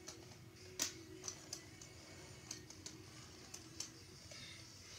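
Light clicks and taps of small toy cars being handled and set down by the toy road and track, irregular, the sharpest about a second in, over a faint steady hum.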